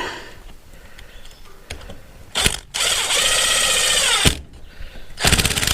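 Power drill driving screws: a short blip, then a steady run of about a second and a half that winds down in pitch as the trigger is released, and near the end a second run with a fast rattle.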